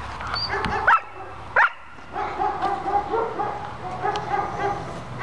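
German Shepherd puppy barking twice, sharp and loud, about one and a half seconds in, then making a run of short, high-pitched whining calls as it bites and tugs a rag.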